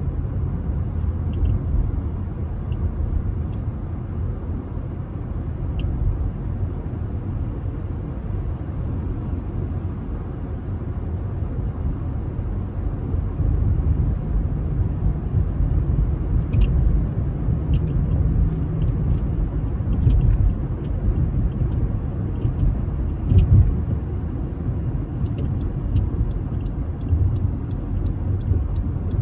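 Steady low rumble of a car driving: road and engine noise, with faint ticking near the end.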